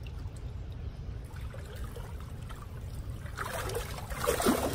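Water sloshing and splashing around a person's legs as he wades through shallow water, getting louder and busier about three seconds in.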